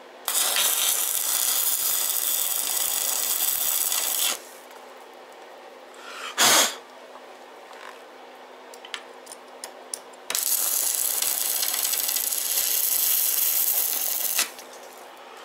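Electric arc welding on the steel tubes of a motorcycle rear frame: two welds, each a loud, steady sizzling hiss about four seconds long, with a pause between them. A short, sharp burst of hiss comes during the pause.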